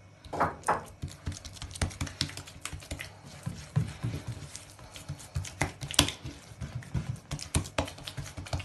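A hand patting and smoothing a ball of bran bread dough in a glazed earthenware bowl, coating its surface with olive oil: a run of irregular soft pats and slaps, with a sharper slap about six seconds in.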